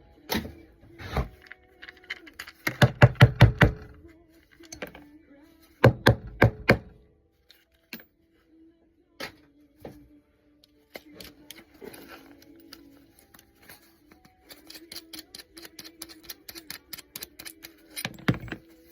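Hand tools and metal parts knocking and clanking as an old fan is taken apart for scrap: heavy thunks about three and six seconds in, then scattered knocks, and a fast run of clicks near the end.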